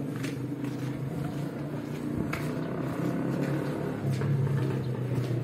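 A steady low engine hum from a motor vehicle, growing a little louder about four seconds in, with a few faint scattered clicks.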